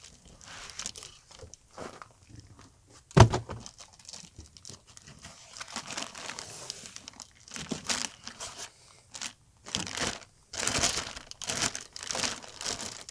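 Clear plastic bag crinkling and foam packing rubbing as a boxed unit is lifted out and unwrapped, in short bursts of rustling that get busier in the second half. One sharp knock about three seconds in is the loudest sound.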